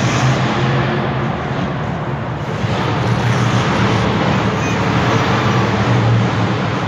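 Monster truck engine running loud under heavy throttle. The revs ease about a second and a half in and build again after about three seconds.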